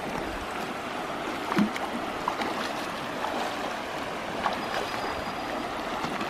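Shallow river riffle running over rocks, a steady rush of water, with a few short splashes as someone wades through it.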